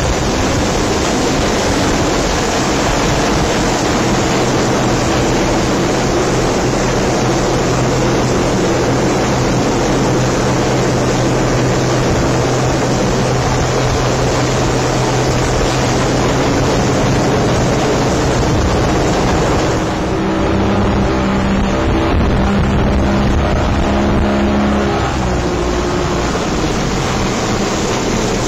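Loud, steady rushing of wind and spray over an open inshore lifeboat under a hovering Sea King helicopter, with a low engine hum underneath. In the last several seconds the engine note shifts in steps, and it rises right at the end.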